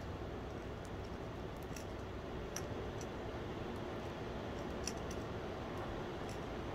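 A steady rushing noise, with a few faint, sharp clicks of steel crucible tongs on the emptied crucible as it is held upside down after pouring molten aluminium.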